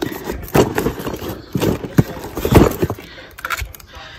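Cardboard box of lift-kit parts being handled and shifted on concrete, giving a series of irregular hollow knocks and thumps.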